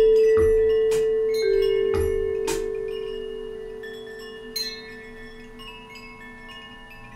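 Solo percussion: several mallet strokes in the first two and a half seconds on ringing metal percussion, whose low bell-like tone sustains and slowly fades. A brief cluster of high chime tinkles comes about four and a half seconds in.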